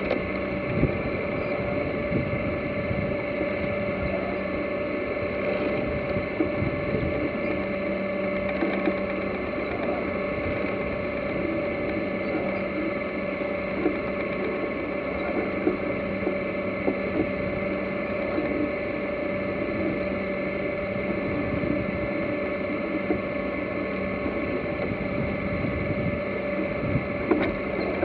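Water rushing and splashing along the hull of a J/111 sailboat under way, over a steady droning hum, with a few light knocks.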